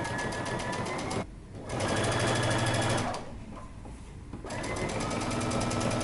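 Electric sewing machine stitching in three runs, with fast even needle strokes. It stops briefly a little over a second in and again at about three seconds in. The seam is understitching along a neckline in knit fabric.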